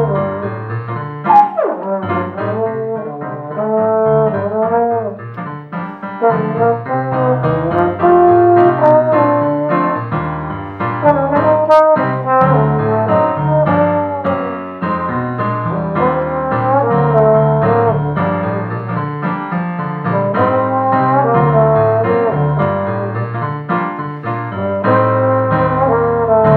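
Jazz trombone and piano duet: a Jupiter XO trombone plays a melodic solo line over chords from a Yamaha digital piano, with a downward slide about a second and a half in.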